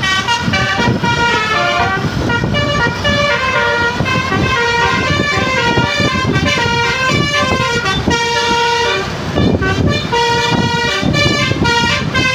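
Tour bus 'telolet' horn, a multi-tone air horn, playing a rapid tune of stepping notes, with a brief break about nine seconds in. A low rumble runs beneath it.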